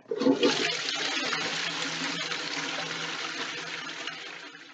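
Toilet flushing: a rush of water swirling down the bowl, which starts suddenly, is loudest in the first moment and dies away near the end.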